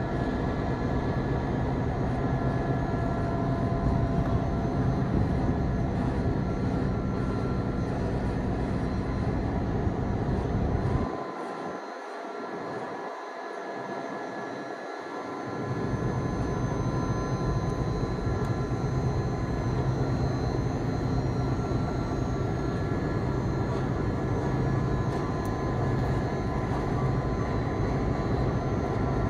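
EMD F3 diesel locomotive's 16-cylinder two-stroke 567 engine running steadily, a low rumble with a constant hum above it. The rumble briefly fades about eleven seconds in and comes back about five seconds later.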